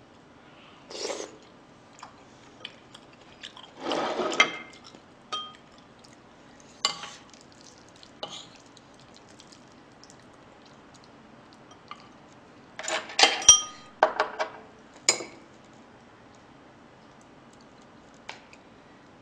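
Metal spoon and fork clinking and scraping against a ceramic plate during eating, in scattered short strokes, with a quick run of sharper clinks about two-thirds of the way in.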